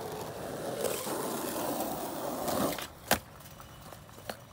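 Skateboard wheels rolling on rough asphalt, growing louder as the board approaches, then a sharp clack about three seconds in as the board hits the wooden ramp. A lighter click follows about a second later.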